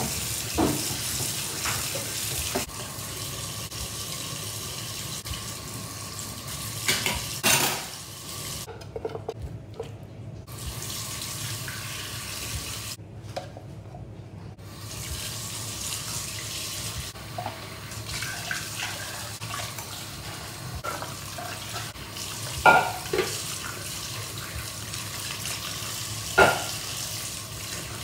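Kitchen tap running into a stainless steel sink while a plastic citrus juicer is scrubbed with a sponge and rinsed. The flow drops away twice for a second or two, and a few sharp knocks of dishware come through, the loudest near the end.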